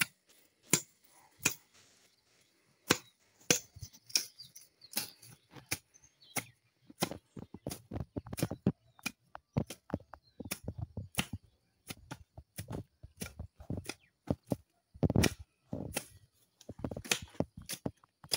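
Short curved hand blade chopping and scraping grass and soil along a footpath while weeding: a quick, irregular run of sharp clicks, about two or three a second, with heavier, duller strikes from about seven seconds in.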